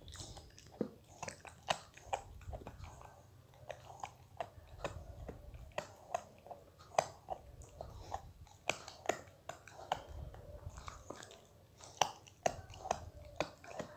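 Labrador puppy chewing and smacking its mouth: a run of soft, irregular wet clicks, one or two a second.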